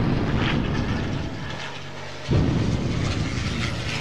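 Aircraft engine noise of planes flying over. It comes in sharply, fades over the first two seconds, then comes back loud again a little after two seconds in.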